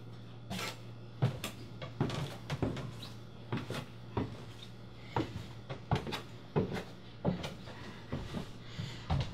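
A series of irregular knocks, taps and clicks, one every half second to a second, over a steady low hum; it sounds like cupboard or door knocking in a small room.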